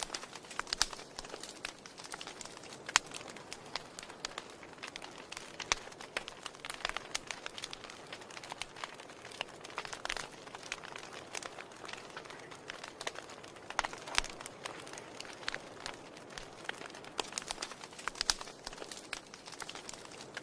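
Wood fire burning in a fireplace, crackling with frequent irregular sharp pops and snaps over a soft steady hiss.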